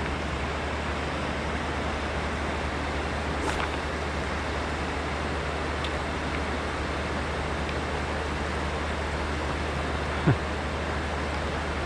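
Steady rush of a fast-flowing river, with a single short knock about ten seconds in.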